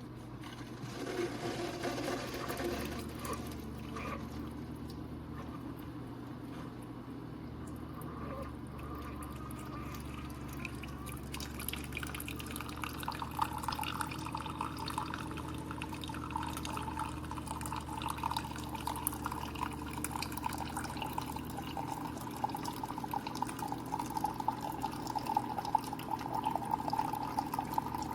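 Keurig K-Supreme Smart single-serve coffee maker brewing a cup: a steady pump hum with hot coffee streaming and dripping into the mug. From about halfway the stream gets louder and holds a steady pitch as the cup fills.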